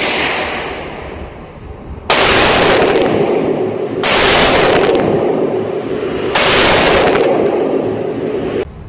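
Three loud rifle shots about two seconds apart from a Remington 7600 pump-action rifle in .308 Winchester, fired standing freehand. Each shot rings on in the reverberant indoor range until the next. A quieter bang comes right at the start.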